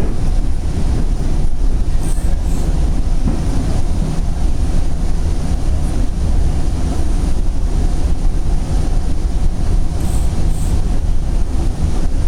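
Steady rumble of a Northstar commuter train's passenger coach running at speed, heard from inside the car: wheels on the rails and the car body, with no letup.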